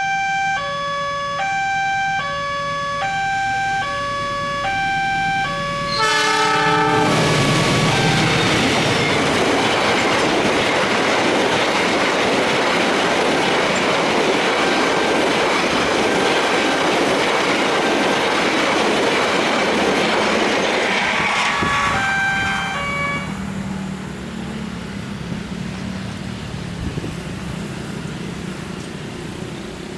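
Railway level-crossing warning siren sounding a harsh, hoarse two-tone alarm that alternates about once a second. About six seconds in, a train horn sounds and the train rumbles and clatters through the crossing for some fifteen seconds, drowning the siren. The siren cuts off shortly after the train has passed, leaving a low hum.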